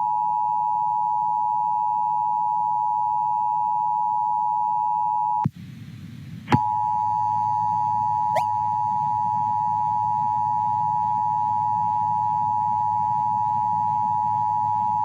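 Emergency alert attention tone: a steady, single-pitched alarm tone around 1 kHz over a low background hum. It breaks off for about a second partway through, comes back with a click, and a brief rising chirp follows a couple of seconds later. It signals that a tornado warning message is about to be read.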